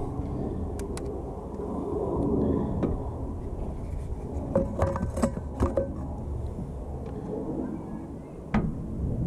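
The hood of a 1984 Ford LTD Crown Victoria being lowered slowly over the engine: a few sharp clicks and creaks from the hood and its hinges, most of them together about five to six seconds in and one more near the end, over a steady low rumble.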